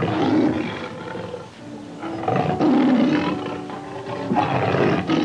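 A large animal's rough, loud calls in three bouts of about a second each, over background music.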